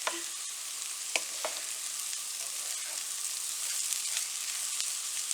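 Rice for plov frying in fat with meat and onion in a heavy skillet: a steady sizzle, with a few sharp clicks of the spatula stirring, once at the start and twice a little over a second in.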